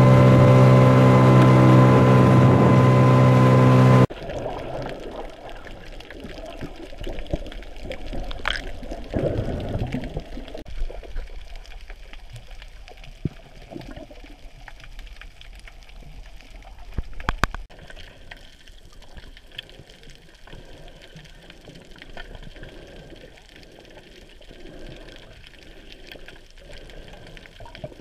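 Boat motor running steadily, stopping abruptly about four seconds in. Then water sloshing and trickling, with a few sharp knocks.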